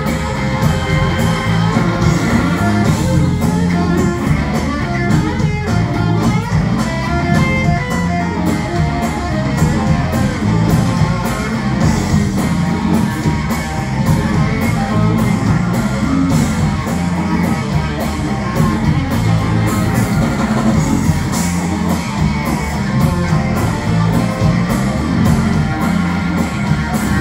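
Live blues-rock band playing an instrumental passage: electric guitar over bass guitar, keyboard and a drum kit keeping a steady beat.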